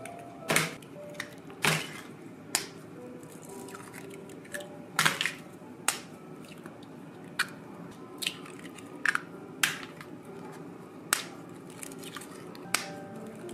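Eggshells cracked open by hand one after another: a dozen or so sharp cracks at uneven spacing, about one a second.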